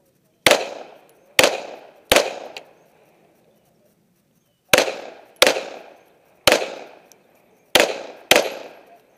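Pistol shots fired rapidly at targets: three shots under a second apart, a pause of about two and a half seconds, then five more. Each shot is a sharp crack with a short echoing tail.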